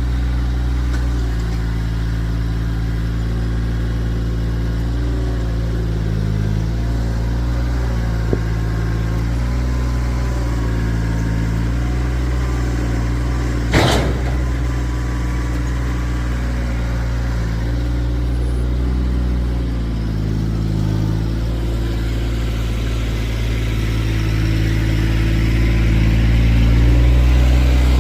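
Kioti tractor's diesel engine running under changing load while lifting and pushing a log with its grapple, with one sharp clank about fourteen seconds in. The engine comes up in speed near the end.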